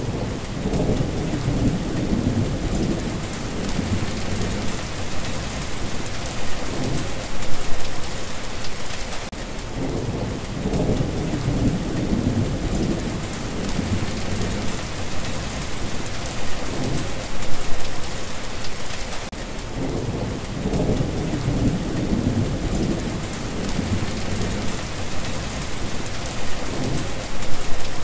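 Steady heavy rain falling, with low rolls of thunder rumbling up three times, about ten seconds apart.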